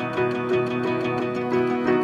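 Background music: a gentle melody of plucked-string notes over sustained chords.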